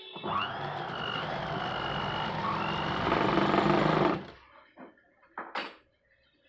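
Electric sewing machine running for about four seconds, its motor whining steadily. It runs louder near the end, then stops suddenly.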